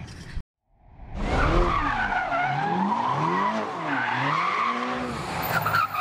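Sound effect of a car skidding: tyres squealing over an engine revving, its pitch sweeping up and down repeatedly, starting about a second in after a brief silence.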